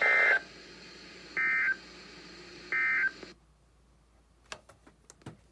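EAS end-of-message data signal: three short bursts of buzzy digital tones, about a second and a half apart, from a weather radio broadcast, marking the end of the alert. The radio's background hiss then cuts off, and a few faint clicks follow near the end.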